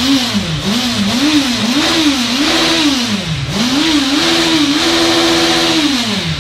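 Honda CB 1000 inline-four engine, warmed up, being revved in a string of quick throttle blips. The pitch climbs and falls about six times, is then held high for about a second and a half, and drops back near the end.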